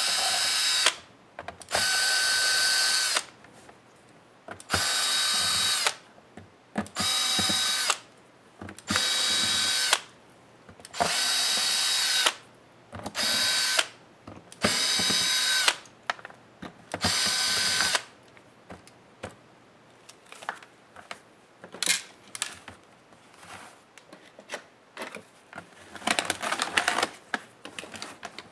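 Cordless drill/driver backing out laptop bottom-cover screws: about a dozen short runs, each a second or so of steady whine, with short pauses between them. After that come light clicks and taps of hands working on the laptop's plastic bottom case, busiest near the end.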